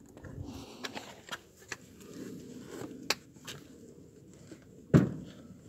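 Rustling and scattered light clicks of things being handled, with one sharp knock about five seconds in.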